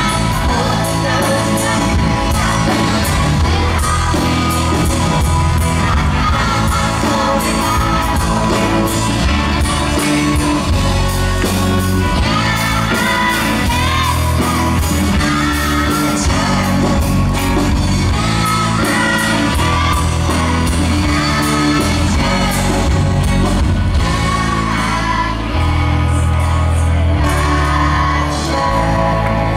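Live amplified band playing a song: electric and acoustic guitars, bass and keyboard under a male lead singer, with a group of children singing along at microphones.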